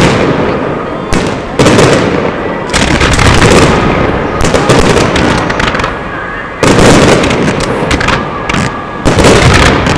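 Fireworks display: aerial shells bursting in quick succession, with a dense run of bangs and crackling. Sudden loud new volleys come at about one and a half, three, six and a half and nine seconds in.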